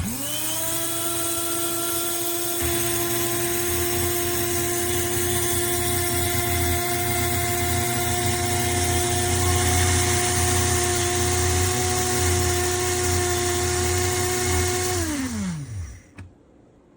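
Electric blade coffee grinder motor starting up, running at a steady high whine for about fifteen seconds, then winding down with a falling pitch. The grinder's shaft is loose with no bearing.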